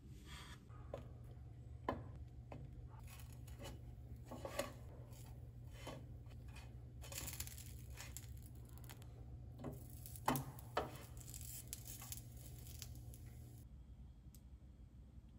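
Quiet kitchen handling sounds: a knife cutting soft blocks of food on a wooden board, then a wooden spatula knocking and scraping in a small nonstick frying pan. Scattered sharp knocks and clicks sound over a faint steady low hum, which stops near the end.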